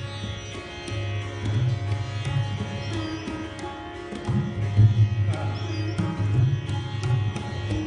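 Handmade tabla pair by Qasim Khan Niyazi & Sons played in quick strokes, with deep bass strokes from the metal bayan, one gliding up in pitch about four seconds in. Alongside it a sitar plays a melody with long ringing notes.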